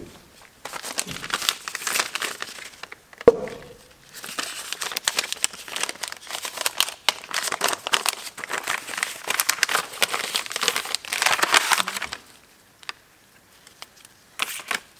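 Crinkling and rustling of a piston ring set's packaging being opened and handled: a dense run of crackles with a sharp click about three seconds in, stopping a few seconds before the end, then a couple of light ticks.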